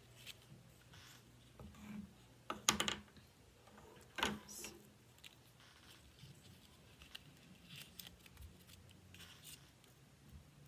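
Painted paper collage pieces being handled and pressed into place: quiet rustling of paper, with a few sharp clicks about two and a half seconds in and a single one about four seconds in.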